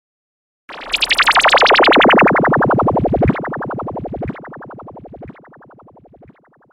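Synthesized DJ sound effect: a rapidly pulsing tone sweeping down in pitch, starting just under a second in, then repeating as echoes about once a second that step down in loudness.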